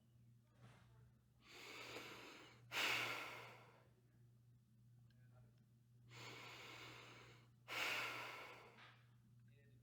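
A girl breathing slowly: two breath cycles, each a softer drawn-in breath followed by a louder sighing exhale.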